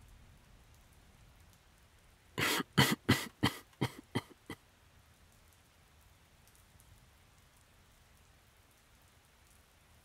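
A sick man's coughing fit: about seven quick coughs a couple of seconds in, growing weaker toward the end. Faint steady rain in the background.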